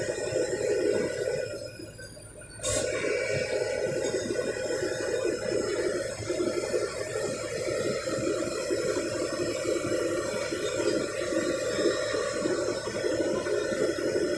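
Diesel engines of Komatsu PC200 and PC300 excavators running steadily, a dense rushing noise. It drops away briefly and comes back with a sharp click about two and a half seconds in.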